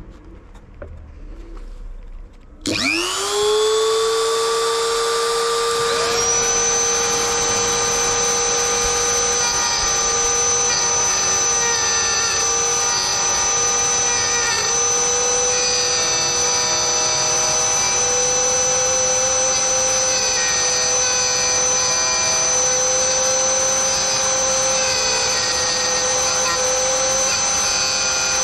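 Dremel rotary tool in a drill-press stand, hacked into a mini milling machine, spins up about two and a half seconds in and then runs with a steady high whine while milling slots in hard PVC sheet. About three seconds later a second steady higher tone joins, and the pitch wobbles slightly as the bit cuts.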